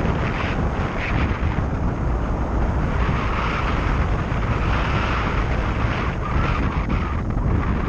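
Wind buffeting the microphone: a loud, steady rush, heaviest in the low end.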